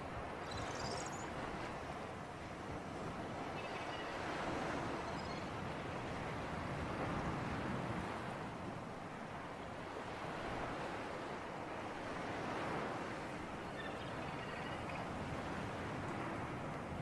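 Sea ambience of waves and wind: a steady wash of surf that swells and eases every few seconds.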